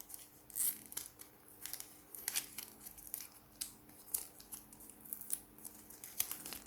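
Packaging and a new phone charger being handled and removed: irregular small clicks, ticks and rustles, several a second.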